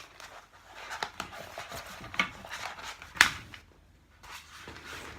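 Sheet of vinyl contact paper being handled, rustling and crackling as its backing is peeled back from a corner, with light taps and one sharp click about three seconds in.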